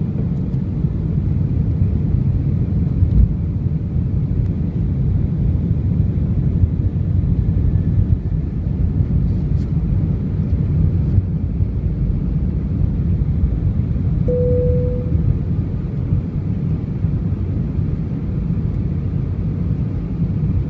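Airbus A320 cabin noise heard from a window seat on approach: a steady low rumble of the engines and the airflow past the fuselage. A short tone sounds once, about two-thirds of the way through.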